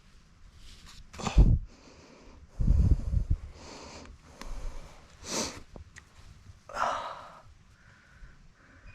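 A man breathing hard in pain just after a mountain-bike crash, in irregular sharp gasps and sniffs. He has hurt his shoulder, later found to be a broken collarbone.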